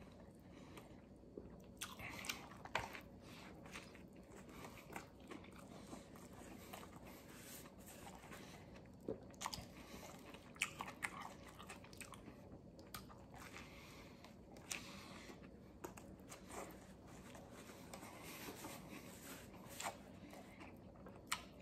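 Faint chewing and biting of a vegetarian sub sandwich, with small crunches and clicks scattered irregularly.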